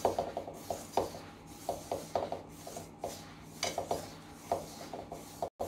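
A hand mixing dry semolina and flour with a little oil in a metal bowl: irregular rubbing and scraping strokes of fingers through the grainy mix and against the bowl.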